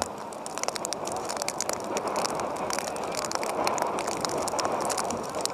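Open-air ambience of a soccer match: a steady rushing haze with many scattered sharp clicks and crackles.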